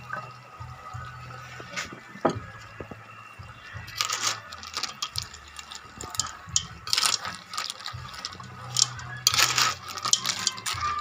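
A metal ladle stirring snails in their shells and fern greens in a metal wok of coconut milk: several spells of scraping and clinking of shells and ladle against the pan, beginning about four seconds in.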